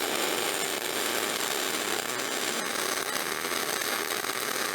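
Spool-gun MIG arc welding aluminium, a steady loud crackling hiss of the arc running a continuous bead at about 180 amps.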